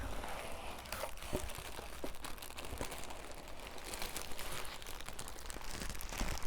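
Packaging crinkling and rustling as it is handled and unwrapped, with many small irregular ticks and crackles.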